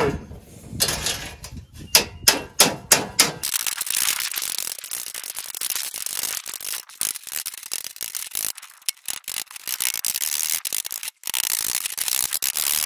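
Panel-beating hammer striking a rusty steel radiator fan cowl against a hand-held dolly to straighten it: about eight sharp blows in the first few seconds, then a long run of fast, light tapping.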